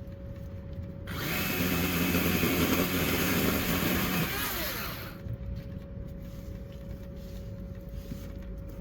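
Ryobi 12-inch battery electric chainsaw cutting through a small cedar trunk: a high motor-and-chain whine starts about a second in, holds for about four seconds, then winds down in falling pitch as the trigger is released.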